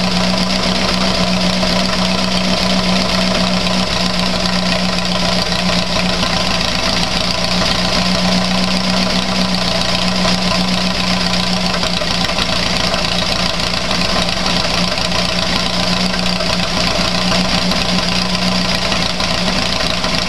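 Air-cooled flat-four engine of a VW Beetle running steadily at fast idle on hydrogen alone, its gasoline line disconnected, with all four cylinders firing.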